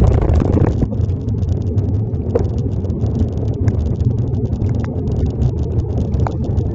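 Wind buffeting the microphone of a phone carried on a moving bicycle, a steady low rumble with scattered crackles and ticks throughout.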